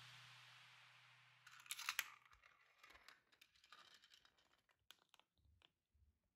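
Steel marble rolling and clicking along plastic GraviTrax track and metal rails, with a short clattering burst about a second and a half in, then only faint scattered ticks.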